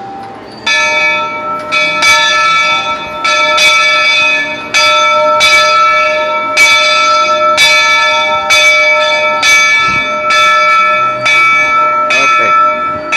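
Steam locomotive Roger E. Broggie's bell, rung by hand with its cord: about one to two strokes a second, each stroke ringing on into the next. The ringing starts under a second in and stops shortly before the end.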